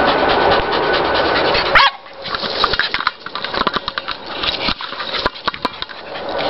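A Staffordshire bull terrier nosing a large black Noseball across dirt and grass: after a steady rushing noise for about two seconds and a short high squeak, a fast, irregular patter of scuffs and clicks as the ball is shoved and rolled along the ground.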